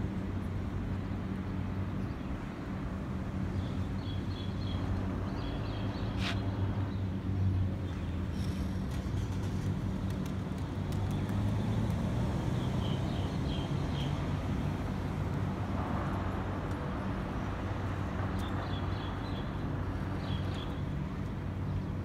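Steady low hum of a running engine. Faint short high chirps of small birds come a few times: a few seconds in, again midway, and near the end.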